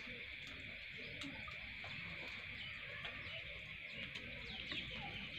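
A steady high-pitched chorus of night creatures, with a few short chirps about four to five seconds in.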